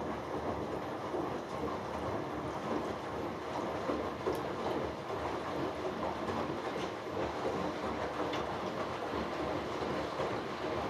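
Hoover Dynamic Next washing machine drum turning a wet load of darks in the final rinse, a steady churning tumble with faint clicks.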